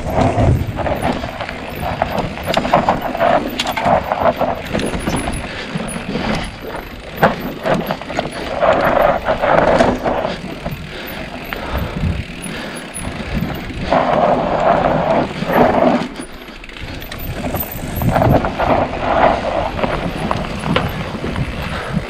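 Mountain bike riding down a loose, dusty trail: tyres crunching and sliding over loose dirt and stones, with the bike rattling and knocking over bumps. The sliding surges come in louder rough stretches every few seconds.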